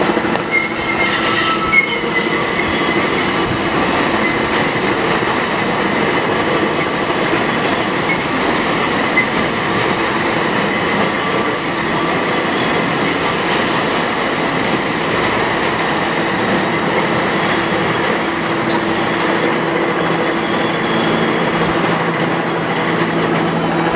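R160 subway train rolling slowly past over yard track: a steady rumble of wheels on rail with a low motor hum, and a thin high wheel squeal that comes and goes.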